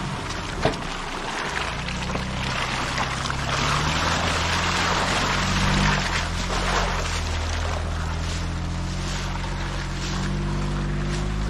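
SUV engine running at low revs while crawling a trail, its pitch stepping up and down, with a rush of noise swelling through the middle and a single sharp knock under a second in.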